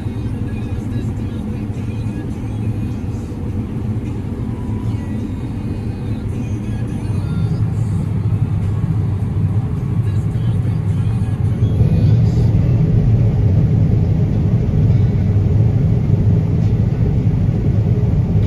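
Heavy farm machinery engine running steadily as a low rumble, growing louder around the middle.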